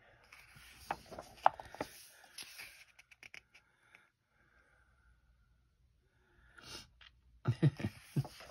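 Pages of a paperback coloring book being turned by hand: paper rustling with a few sharp taps for the first few seconds, a quiet pause, then another page turned near the end.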